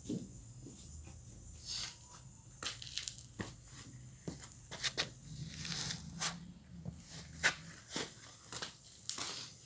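Irregular tearing and rustling with scattered small clicks, as the backing is peeled from the double-sided adhesive tape of a plastic car side trim strip and the strip is handled.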